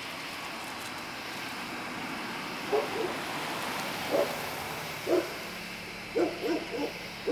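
A dog barking: a string of about nine short barks beginning about three seconds in, coming quicker near the end, over a steady chirping of insects.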